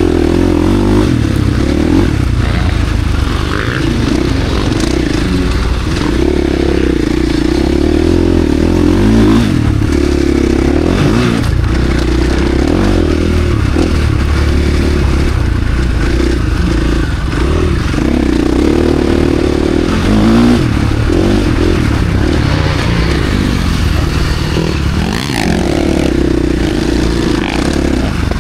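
KTM SX-F four-stroke motocross bike engine revving hard and easing off again and again as it is ridden around the track.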